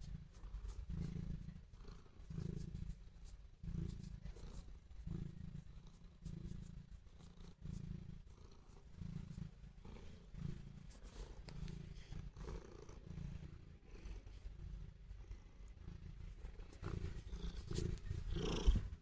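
Domestic cat purring, a low rumble that swells and fades with each breath about every second and a half; a sign of contentment toward its owner. A brief louder sound shortly before the end.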